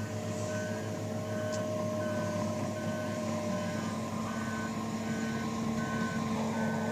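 Large tracked excavator's diesel engine running steadily under load while it digs out tree root wads, with an alarm sounding a steady run of short, evenly spaced beeps.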